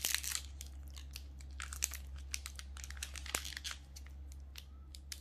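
Foil wrapper of a Magic: The Gathering booster pack crinkling in several short bursts as hands grip it and try to tear it open.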